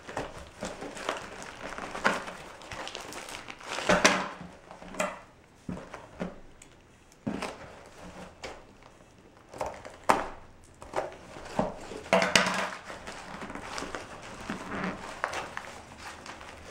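Paper and plastic packaging rustling and crinkling as a taped mailer envelope is handled and cut open with scissors, in irregular bursts with scattered sharp clicks.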